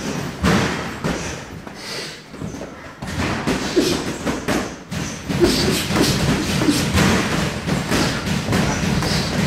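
Boxing gloves landing in sparring: a series of dull thuds from punches on gloves, headgear and bodies, sparse at first and coming several a second from about three seconds in.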